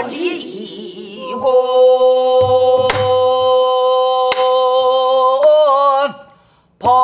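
Pansori singing: a woman's voice holds a long, steady note on the word "버리고", with a few sharp strokes of a buk barrel drum struck with a wooden stick. The voice breaks off briefly near the end and starts again.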